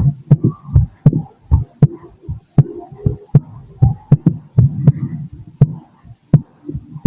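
Human heartbeat heard through a stethoscope: regular paired lub-dub beats, about 80 a minute.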